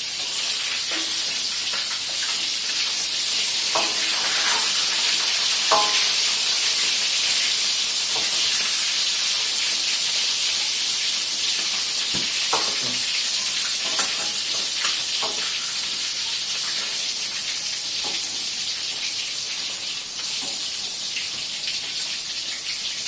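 Chicken pieces frying in hot oil with a steady sizzle, with a few scrapes and clinks of a utensil turning them against the pan.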